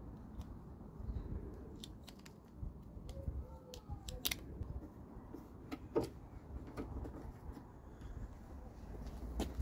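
Scattered small clicks and taps of a plastic door-mirror base plate and a screwdriver being handled against a car door, over a low background rumble.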